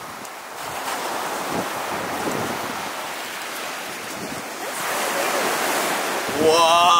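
Ocean surf breaking and washing up on a sandy beach, a steady rushing that swells a little near the end, with wind on the microphone. Just before the end a loud voice cuts in.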